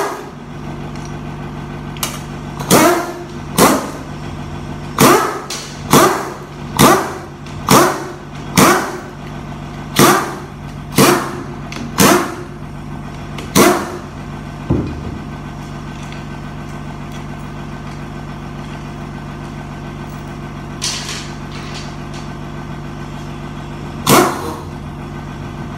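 Handheld power driver spinning out the end-cover bolts of a U250 transaxle in about a dozen short bursts, one after another, each winding down in pitch as it stops. After a pause there is one more burst near the end. A steady mechanical hum runs underneath.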